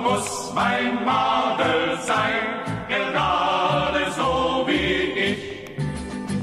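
Choir singing a German hiking song in held phrases.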